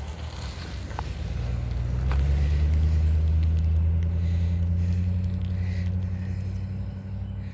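A motor vehicle driving past on the road: a low engine drone that builds over the first couple of seconds, holds at its loudest, then fades as it goes by.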